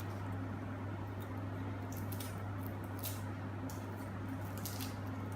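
Foil wrapper crinkling and rustling in short, scattered crackles as a chocolate surprise egg is unwrapped by hand, over a steady low hum.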